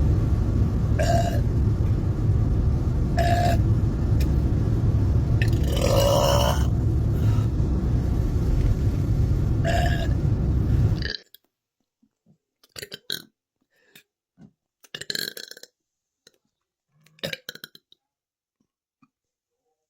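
A woman burping repeatedly. The first part is covered by a loud steady low rumble that cuts off suddenly about eleven seconds in, and the later burps come as short, separate sounds over near silence.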